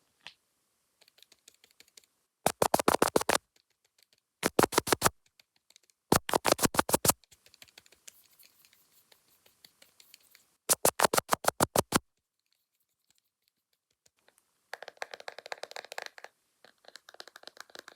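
Fast ASMR tapping: four short runs of rapid taps, about ten a second, with pauses between, then softer scratchy rustling near the end.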